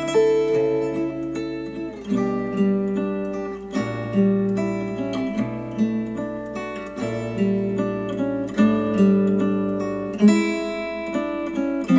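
Acoustic guitar music played back through KEF Q350 bookshelf speakers: chords struck about every one and a half to two seconds, each left to ring and fade.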